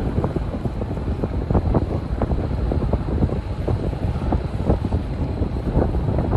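Wind buffeting the microphone: a steady low rumble with irregular flutters.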